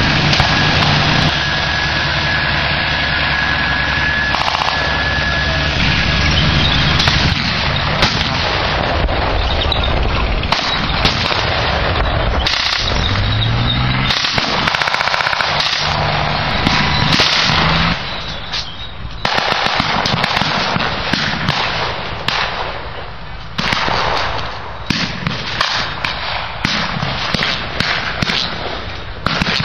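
Armoured vehicle engines running, one revving up, with rapid blank gunfire from machine guns and rifles: occasional shots at first, then dense bursts of shots from about halfway on.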